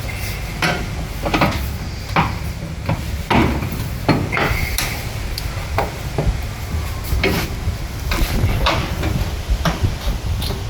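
Irregular metal clanks and knocks, about one or two a second, as tools and steering parts are handled during a steering rack installation, over a steady low rumble.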